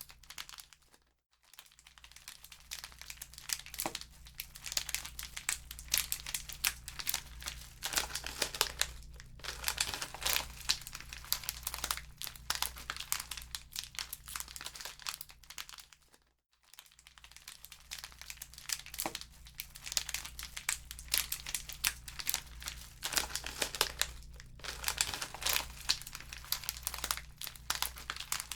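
Wood fire in a fireplace crackling with dense snaps and pops over a steady low hum. The sound cuts out briefly twice, about a second in and again about halfway through.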